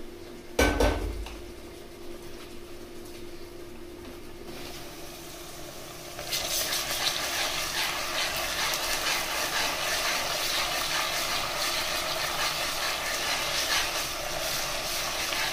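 Chopped onions and spice paste frying in hot oil in an aluminium pressure cooker, stirred with a slotted steel spatula. The sizzling comes up loud and stays dense from about six seconds in. A single sharp knock sounds just under a second in.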